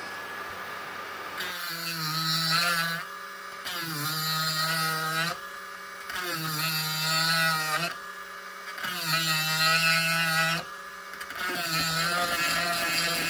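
Dremel rotary tool with a small grinding stone running against birch, smoothing a carved groove. It gives a steady high whine in about five stretches with short quieter breaks between them.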